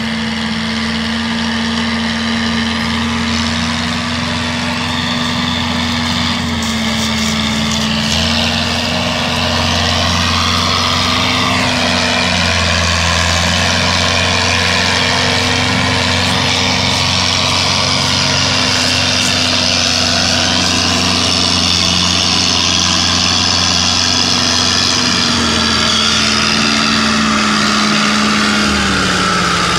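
Fiat 640 tractor's three-cylinder diesel engine running steadily under load as it pulls a trolley piled with sugarcane, growing a little louder as it comes closer. The engine note drops near the end as the tractor slows.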